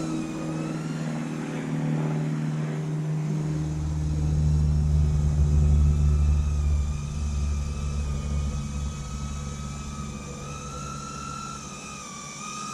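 FPV quadcopter's motors whining steadily, the pitch drifting a little with throttle, over a low rumble of wind on the onboard camera's microphone that swells for a few seconds in the middle.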